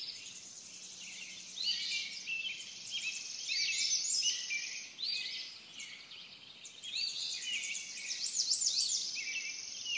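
Birds chirping and whistling in many short, overlapping calls over a steady high insect trill.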